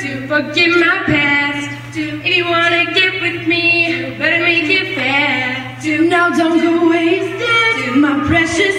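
Group of female voices singing a pop song together into microphones.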